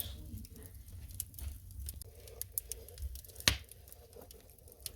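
Wood fire crackling in a fireplace: scattered small pops and ticks over a low steady rumble, with one sharp loud pop about three and a half seconds in.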